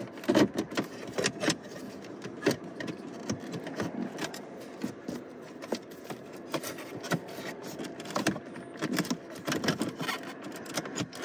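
Irregular plastic clicks, knocks and rattles from hands working the Lexus CT's factory screen housing and its wiring connectors back into the dashboard.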